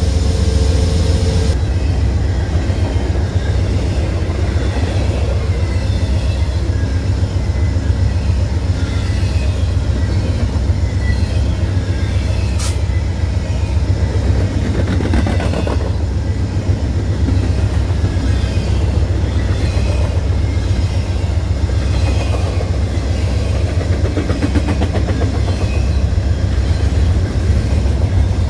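Amtrak passenger train rolling past, its wheels on the rails making a steady, loud rumble.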